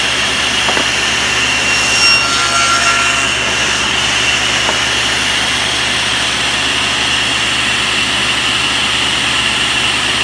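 SawStop table saw running with a steady whine. About two seconds in, the blade cuts a shallow groove along a small piece of wood for about a second and a half. This is a test cut to check the blade height for a 3/8-inch-deep groove.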